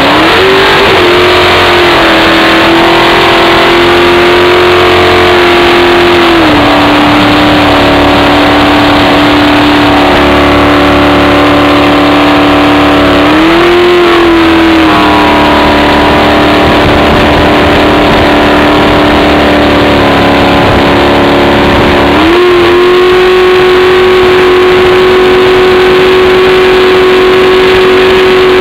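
Drag boat's engine heard on board, running loud and steady at speed. Its pitch drops about six seconds in, surges briefly around fourteen seconds, and climbs again at about twenty-two seconds, then holds there.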